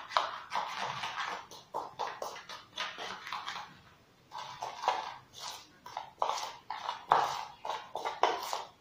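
Steel spoon stirring dry spice powders (turmeric, fenugreek and dry ginger) in a small bowl: a quick, irregular run of scrapes and clicks against the bowl, with a short pause about four seconds in.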